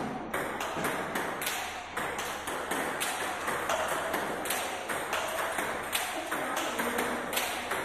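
Table tennis balls being struck in quick succession during forehand topspin drive practice: a steady run of sharp clicks, about three a second, as the balls hit the bats and bounce on the table.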